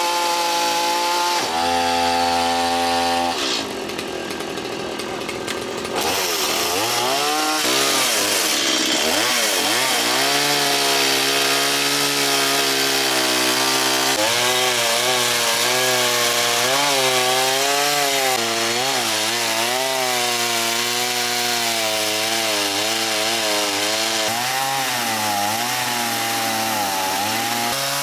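Chainsaw cutting into a wooden boat keel, trimming it back so the new rudder can swing freely. The engine holds a steady pitch at first and eases off briefly about four seconds in. After that its pitch rises and falls continuously as it labours and picks up in the cut.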